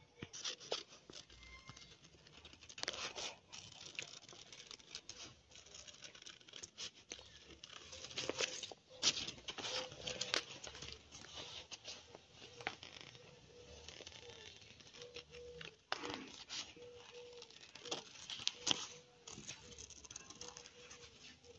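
Scissors snipping through a sheet of paper stickers, with the paper rustling and crinkling as it is turned: irregular small clicks and rustles throughout.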